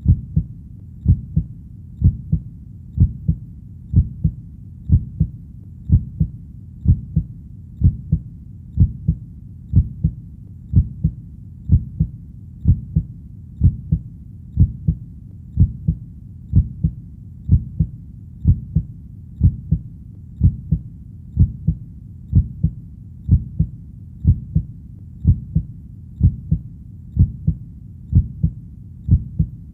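Heartbeat: a steady 'lub-dub' of low double thumps, about one beat a second, repeating evenly throughout.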